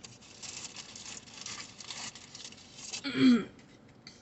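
Crinkling and rustling of paper food packaging being handled for about three seconds, then a single spoken word near the end.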